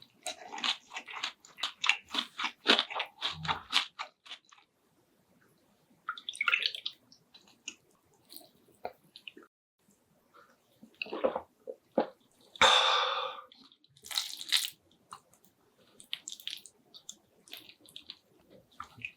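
Close-miked chewing and biting of a spicy stir-fried squid meal: a quick run of crisp crunchy chews for the first few seconds, then a pause and slower, scattered chewing and mouth sounds, with a louder longer noisy burst about two-thirds of the way through.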